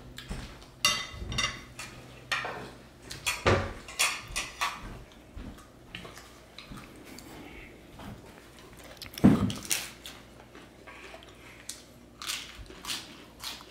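Cutlery and dishes clinking and knocking against one another in an irregular series of sharp hits, a few of them ringing briefly. The loudest knock comes about nine seconds in.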